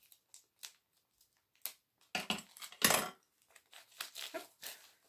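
Paper and sticky tape being handled and worked free with scissors: small scattered clicks and rustling, with two louder crackles about two and three seconds in, then more crinkling near the end.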